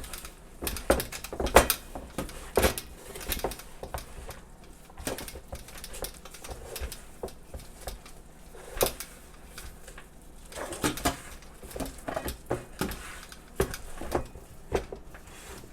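Pakora mixture of onion, gram flour, rice flour and spices being mixed in a bowl: irregular taps and knocks against the bowl.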